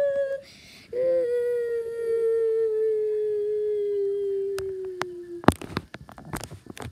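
A child's voice humming one long note that slowly falls in pitch, broken by a quick breath about half a second in: a vocal imitation of a tornado's wind. It stops about five and a half seconds in, followed by a cluster of sharp knocks and clicks.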